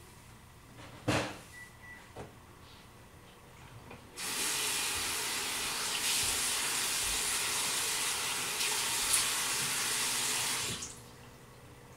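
A single knock about a second in, then a bathroom tap turned on, water running steadily into the sink for about six seconds, and shut off abruptly.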